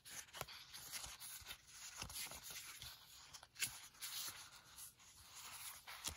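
Faint rustling and light taps of planner sticker sheets being shuffled and set down on a table, with one sharper tap a little past halfway.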